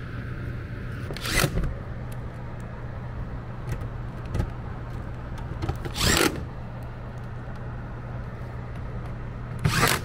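Cordless Milwaukee FUEL driver running in three short bursts, driving sheet-metal screws on an air handler's cabinet panel, over a steady low hum.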